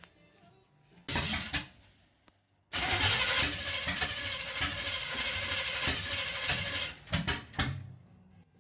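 Starter cranking a freshly built small-block Chevy V8 on a first-start attempt: a short crank about a second in, then a longer crank of about four seconds, then a couple of brief blips before it stops.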